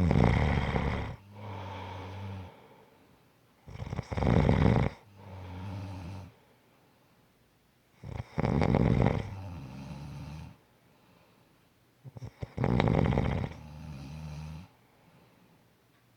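Steady snoring: four snores about four seconds apart, each a loud snore of about a second followed at once by a quieter, steadier one.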